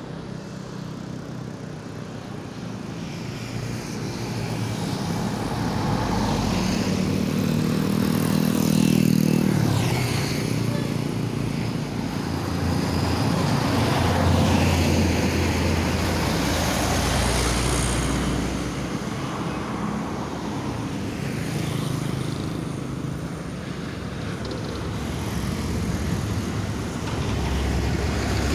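Road traffic passing close by: vehicle engines and tyres rising and falling in loudness as vehicles go past. A deep droning sound with a steady pitch stands out about a quarter of the way in.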